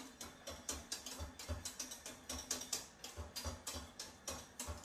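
A utensil stirring crème pâtissière in a saucepan on the heat, knocking and scraping against the pan in quick regular clicks, about four or five a second, while the cream thickens.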